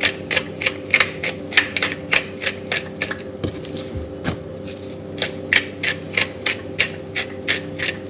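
Black pepper being put onto raw chicken thighs from its container: a quick, irregular run of sharp clicks, several a second.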